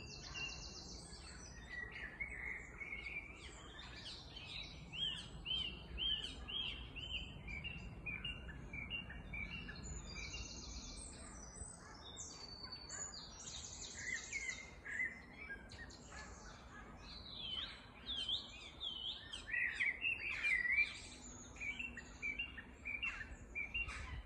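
Several woodland songbirds singing at once, unseen in the canopy: repeated chirping phrases and quick high trills overlapping one another.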